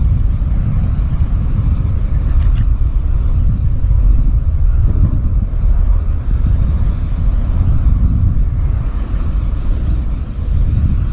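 Wind buffeting the microphone: a loud, steady low rumble with no clear pitch.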